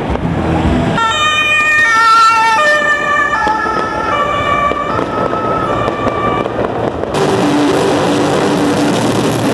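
German police van's two-tone siren, alternating between a high and a low pitch, from about a second in until about seven seconds in. It is preceded by a moment of fireworks crackling and followed by live rock band music.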